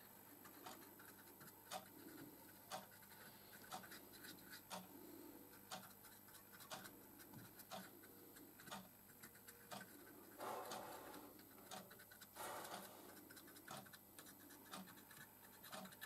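Faint scratching of a paintbrush working weathering powder into a model tender's underframe, a little louder twice in the second half, over a faint steady tick about once a second.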